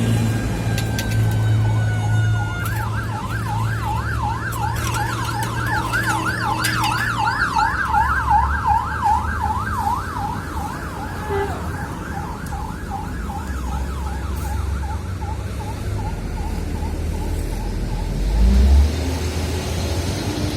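An emergency vehicle's siren warbling rapidly up and down, swelling and then fading away, over a steady low engine drone. A louder low rumble comes near the end.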